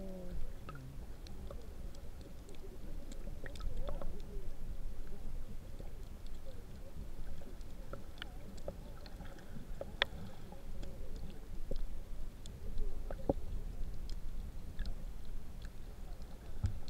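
Muffled underwater sound from a submerged camera: a low, steady rumble of moving water with scattered sharp clicks and crackles.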